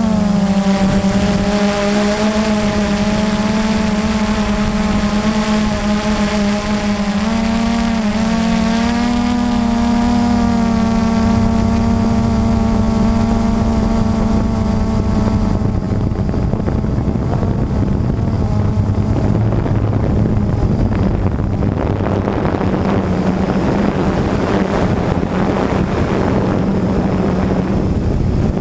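Blade 350 QX3 quadcopter's electric motors and propellers running with a steady buzzing hum, heard from the onboard camera, the pitch wavering as the motors change speed. In the second half the higher tones fade and a rushing noise like wind on the microphone takes over.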